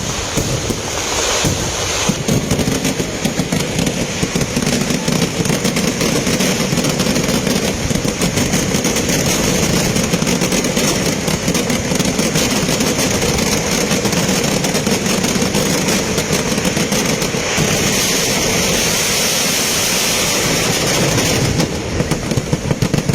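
Kerala temple fireworks (vedikettu): a dense, unbroken barrage of firecracker bangs running together into a continuous crackling rumble, breaking up into separate bangs near the end.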